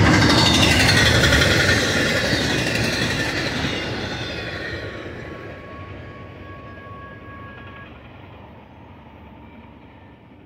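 Last cars of a double-stack intermodal freight train rolling past, the wheel and car noise loud at first and fading steadily away as the train recedes.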